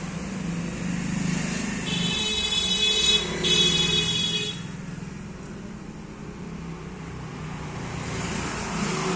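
Road traffic going by, with a steady engine hum and two long horn blasts back to back starting about two seconds in.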